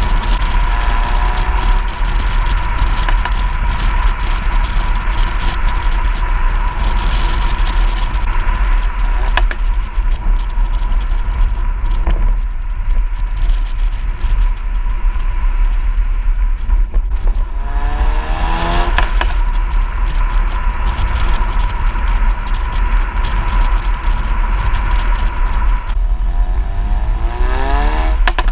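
Ford Focus RS being driven at road speed, heard from a camera mounted on the outside of the car under heavy wind rumble on the microphone. The engine note rises as the car accelerates about 18 seconds in and again near the end, with a few sharp clicks along the way.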